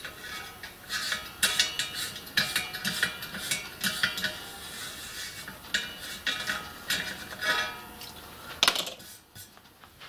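Repeated metallic clinks and rattles of hand tools and small metal fittings being handled while a fitting on a copper model-locomotive boiler is worked with a T-handled tool, with a sharper knock near the end.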